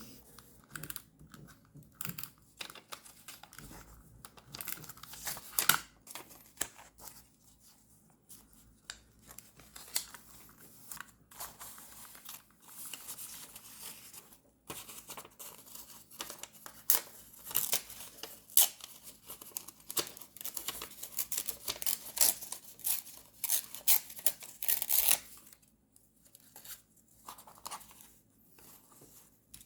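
Paper and sticker sheets being handled close to the microphone during journal decorating: crisp rustling, tearing and snipping in quick irregular runs. It is busiest in the middle and sparser near the end.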